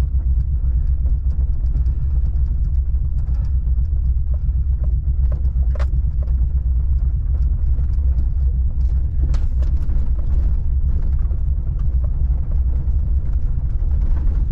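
Truck driving on a damp dirt road: steady low rumble of road and engine noise, with scattered small clicks and knocks, a sharper one about six seconds in.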